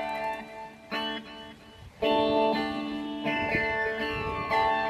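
Electric guitar played through an amplifier: held notes that die away over the first two seconds, then a loud chord struck about two seconds in, followed by more ringing notes.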